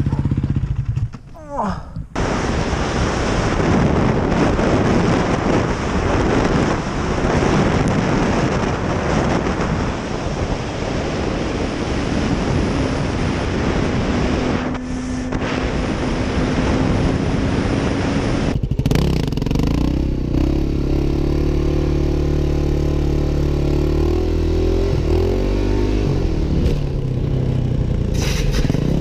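Motorcycle riding heard from helmet cameras. First comes a long stretch of loud wind rush over the microphone. After a sudden cut about two-thirds of the way in, a dirt bike's engine runs, its pitch rising and falling with the throttle.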